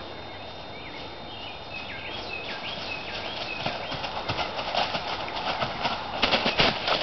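A horse's hoofbeats on dry, leaf-covered forest ground, getting steadily louder as the horse comes closer. A bird chirps repeatedly through the first few seconds.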